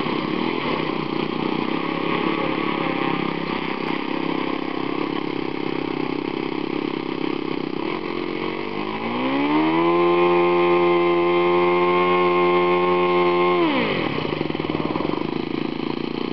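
Model airplane engine running, then revving up about nine seconds in to a steady high pitch. It holds that pitch for about four seconds, then drops sharply.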